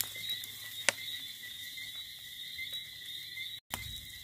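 A steady, high-pitched chorus of calling night creatures, frogs or insects, held on two even pitches, with a few sharp cracks from the wood fire under the grilling chicken, the clearest about a second in.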